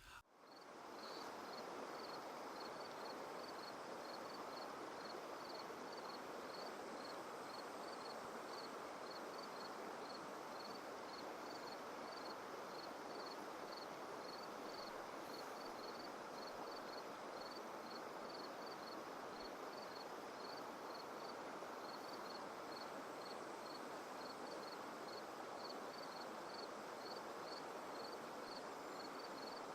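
Shallow, fast river riffle running over a rocky bottom, a steady even rush of water that fades in over the first second or two. A faint high chirp repeats about twice a second above it throughout.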